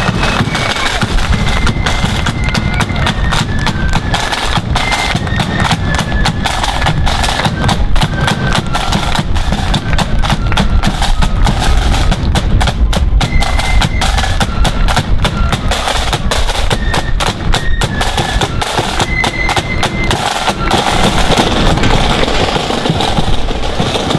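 Marching flute band playing: flutes carry a melody of held, stepping high notes over fast, dense snare drumming and bass drum beats.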